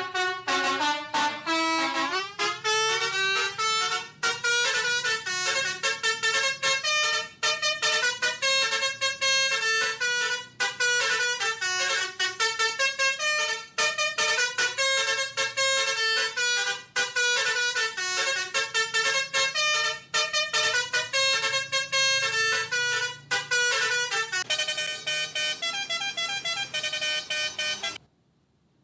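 A fast, trilling telolet basuri melody of horn-like notes, like the tunes played on Indonesian bus horns, with a rising slide in pitch near the start. Near the end the tone turns brighter, then the melody cuts off suddenly about a second before the end.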